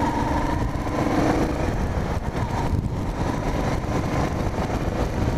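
Car engine and road noise heard from inside a moving car's cabin: a steady low rumble with no break.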